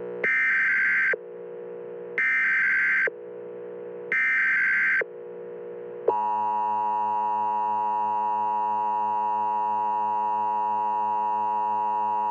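Emergency Alert System tones: three short buzzy SAME header data bursts about two seconds apart, with a lower tone sounding between them. About six seconds in, the steady two-tone EAS attention signal begins and holds.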